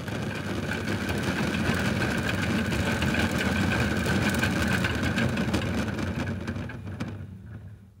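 Toy washing machine's small electric motor turning the drum with water and Orbeez water beads tumbling inside: a steady high whine over a churning rumble with small clicks. It starts just before and winds down near the end.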